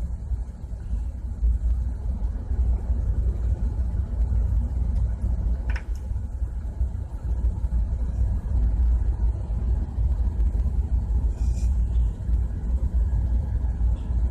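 Steady low rumble of running machinery in a ship's engine room, with a single short click of a part being handled about six seconds in.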